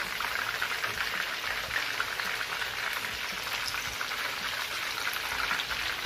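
Flour-and-sauce-coated chicken skewers shallow-frying in hot oil in a pan, a steady dense crackling sizzle, while they are turned over with tongs.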